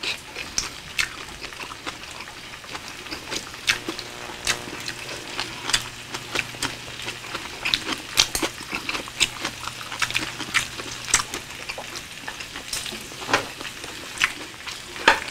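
Pork sizzling on a tabletop Korean barbecue grill: a steady crackle with irregular sharp pops and a low hum, mixed with close chewing and mouth sounds from eating.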